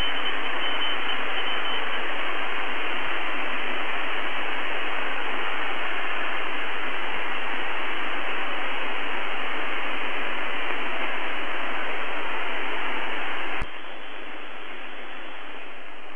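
Shortwave radio static: a steady, loud hiss from a receiver tuned to UVB-76, with no buzzer tone or Morse heard. A faint high tone fades out in the first two seconds, and about 13 and a half seconds in a click is followed by a sudden drop in the hiss level.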